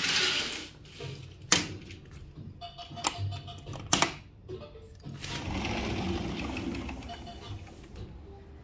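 Sliding glass balcony door and its frame being handled: a noisy rustle at the start, then a few sharp clicks and knocks, then a rushing sound for a few seconds.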